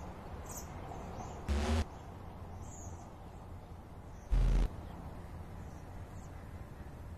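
Steady low background hiss with a few faint high chirps, broken by two short, loud, low thumps: one about a second and a half in, the other about three seconds later.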